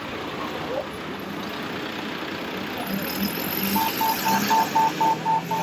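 Pedestrian crossing signal for the blind beeping about four times a second once the light turns green, starting nearly four seconds in, over steady city traffic noise.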